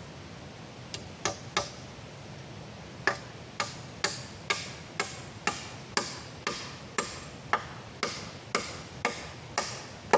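Repeated sharp blows of a tool striking wood, as in chopping. There are three knocks, a short pause, then a steady run of about two strikes a second over a steady background hiss.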